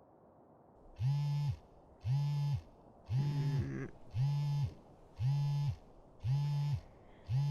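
Mobile phone on vibrate buzzing as its alarm goes off: short buzzes, about one a second, seven times, with a faint rain hiss underneath.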